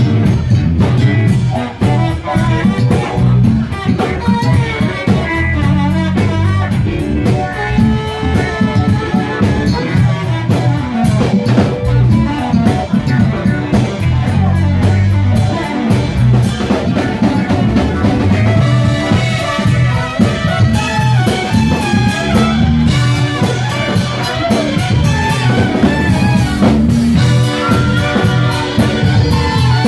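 Live cover band with a horn section playing a dance number: horns, drum kit, electric guitar and bass together, loud and steady, recorded on a phone from the dance floor.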